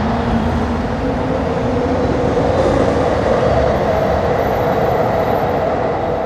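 A loud, steady rumbling drone with a few held tones in it, of the kind circulated online as unexplained 'strange sounds in the sky'.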